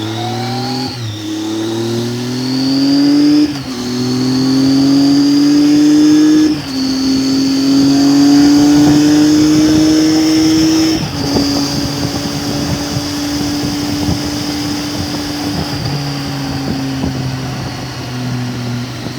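Triumph Tiger 800's three-cylinder engine accelerating through the gears. Its pitch climbs and drops at each of four upshifts, then holds steady at cruising speed and eases off slightly near the end.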